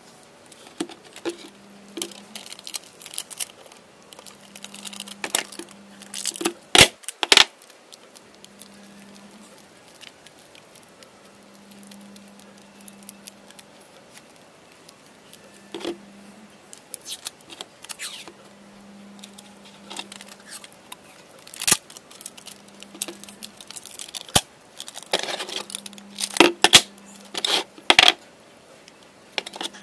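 Adhesive tape being pulled off its roll and pressed around a lithium-ion polymer pouch battery: intermittent ripping and crinkling, with sharp clicks and knocks as the battery and roll are handled on a wooden bench. The handling is busiest near the end, under a faint low hum that comes and goes.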